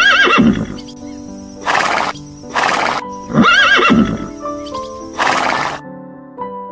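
Horse neighing twice, a few seconds apart, each neigh a shaky, wavering call that falls in pitch. Short breathy bursts come between and after the neighs, over piano music.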